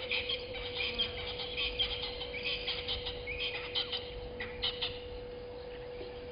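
Birds calling in quick, high, repeated chirps that thin out about five seconds in, over a steady low hum.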